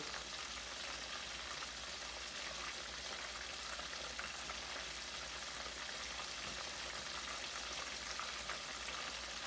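Cornmeal-breaded crappie fillets deep-frying in hot oil in a pan: a steady sizzle with fine crackling.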